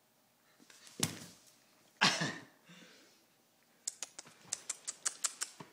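Puppy play scuffling on a tile floor: a knock about a second in, a rustling scrape at about two seconds, then a quick run of light clicks and taps, about six a second, near the end.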